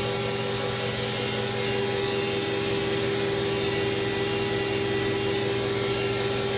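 Fadal VMC2016L CNC mill's spindle running steadily at 10,000 RPM, a steady whine over an even hiss of machinery.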